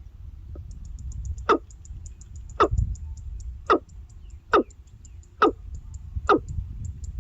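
A bird repeating a sharp call that drops steeply in pitch, six times at about one-second intervals. A faint, fast, high-pitched ticking runs underneath, over a low rumble.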